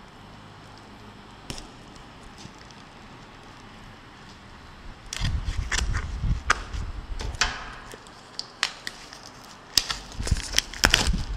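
Handling noise from unboxing a smartphone: a few seconds of near-quiet with an odd click, then from about five seconds in rough rustling and rubbing with a run of sharp clicks and crackles as the packaging is handled and opened.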